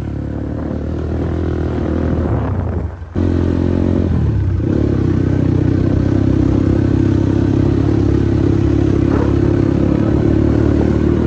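Motorbike engine running steadily while riding, heard from the rider's seat. It drops out for a moment about three seconds in, then comes back louder and holds steady.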